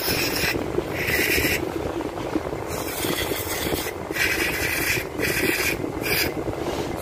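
Aerosol parts cleaner hissing out in about six short bursts through its red extension straw onto an idle air control valve, washing carbon and dirt off it. A steady low hum runs underneath.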